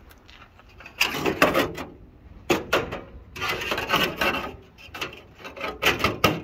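Rusty sheet-metal pieces of a Ford Cortina Mk4's inner wing being moved by hand, scraping and knocking against each other in four separate bursts.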